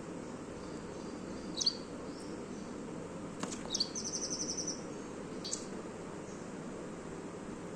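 Small birds chirping: a sharp chirp about a second and a half in, another near four seconds that runs into a quick high trill of about ten notes, and one more chirp about five and a half seconds in, over steady low background noise.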